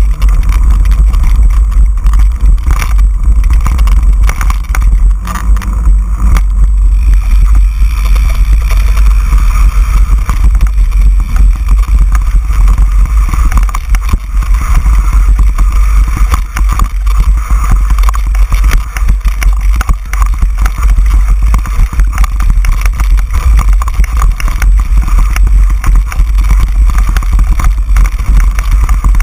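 Wind buffeting the microphone of a camera riding on a mountain bike: a loud, steady low rumble, with constant rattle and clatter from the bike and its tyres going over rough, stony dirt trail.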